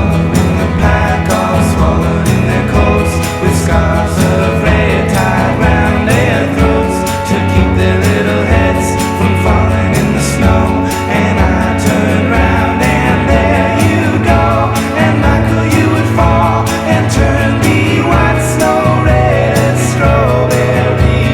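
Music: a song in a stretch without words, with a pulsing bass line under wavering melody lines.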